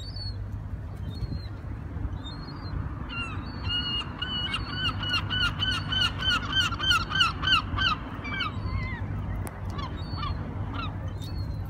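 Gulls calling: a fast run of loud, repeated calls at about three a second lasts some five seconds from about three seconds in, with single calls before and after. A steady low rumble lies underneath.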